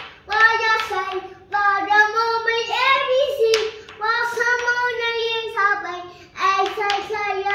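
A young girl singing to herself in a high voice, holding drawn-out notes, with a few sharp pats of her hand on the wall.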